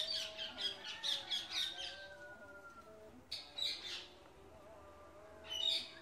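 Rose-ringed parakeet calling: a fast run of sharp, high chirps in the first two seconds, then two shorter calls about three and a half and five and a half seconds in.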